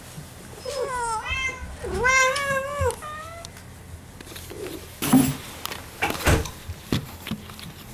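Domestic cat meowing twice as a greeting, a short rising call and then a longer arched one, followed by a few sharp knocks and bumps about five to seven seconds in.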